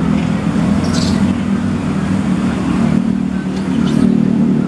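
Steady, loud low engine hum, with a few faint high chirps about a second in and again near the end.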